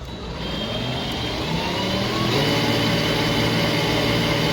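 Toy electric bike's drive motor and gearing running forward under power, a whine that rises in pitch as it speeds up and levels off into a steady run a little over two seconds in.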